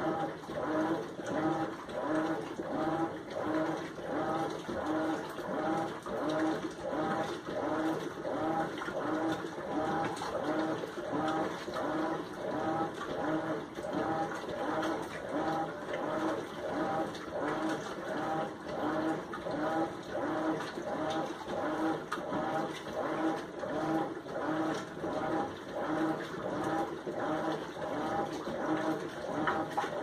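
Whirlpool Xpert System Smart Load top-loading washer agitating a load of clothes in water during the wash cycle: a steady, rhythmic swish of water and fabric, about three strokes every two seconds, as the centre agitator turns back and forth.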